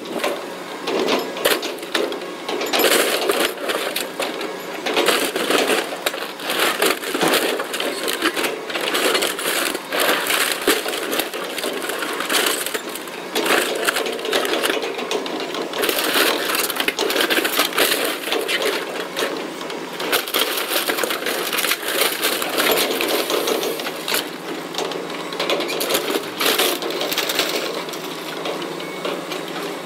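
Hydraulic demolition grapple crushing and tearing apart a sedan's body: a continuous run of crunching, snapping and clinking of sheet metal and glass.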